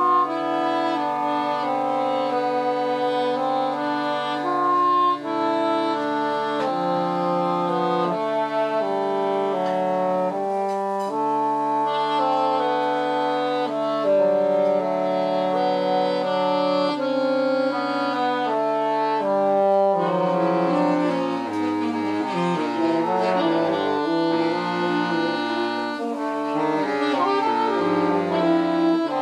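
A quartet of wind instruments playing in four parts, starting suddenly. Long held chords give way to quicker, shorter notes about two-thirds of the way through.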